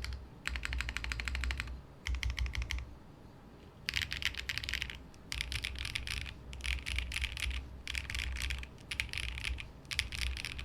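Typing on a KBD 8X MKIII mechanical keyboard with factory-lubed HMX Macaron switches and GMK Striker keycaps, built gasket-mounted with no foam, an aluminium plate and a 1.2 mm hot-swap PCB. Quick runs of keystrokes in bursts of about a second, with short pauses between them, stopping just before the end.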